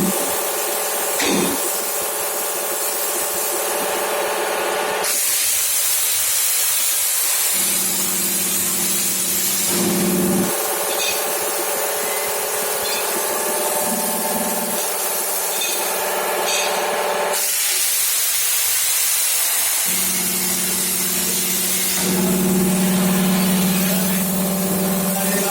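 Plasma cutter torch hissing loudly and steadily as it cuts, over a steady low hum that drops out for a couple of seconds twice and comes back.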